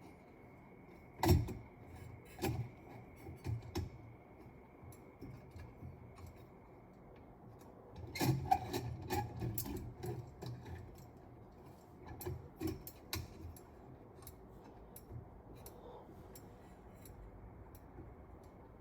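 Scattered clicks and taps, with small clusters a few seconds apart: glass light shades clinking against the fan's light-kit fitter and its metal thumbscrews as the shades are fitted and tightened.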